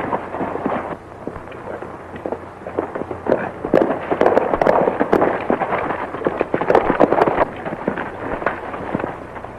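Horses galloping: a fast, dense clatter of hoofbeats, loudest around the middle and easing off near the end. It is heard on an old, narrow-band film soundtrack with hiss.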